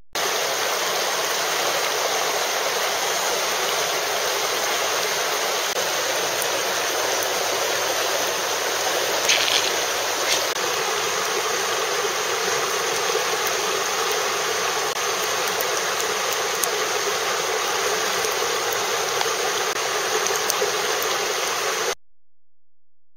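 Steady rush of water over river rapids that cuts off suddenly near the end, with a couple of brief clicks near the middle.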